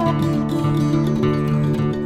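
Background music led by plucked acoustic guitar, with a steady bass line under it.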